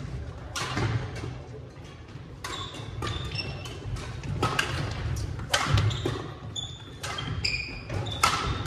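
Badminton rackets striking a shuttlecock in a rally, a string of sharp hits, with sneakers squeaking briefly on the wooden gym floor and footfalls in between.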